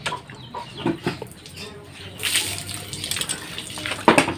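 Clinks and knocks of hand tools and engine parts being handled on an open motorcycle crankcase. A rushing hiss comes in about halfway through, and a sharp clatter near the end is the loudest sound.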